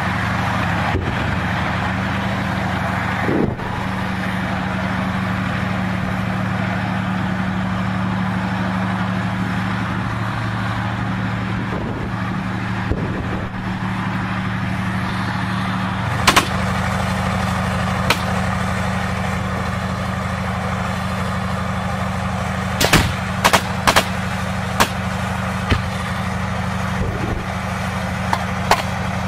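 Tank engine running steadily close by, with scattered gunshots: one about halfway through, a quick run of four or five a few seconds later, then a few single shots near the end.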